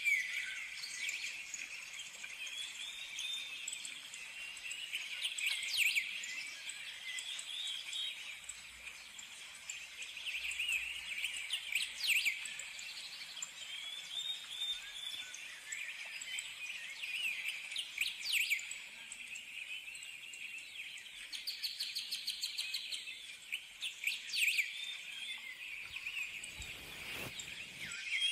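Birds chirping and calling, with a louder sweeping call about every six seconds.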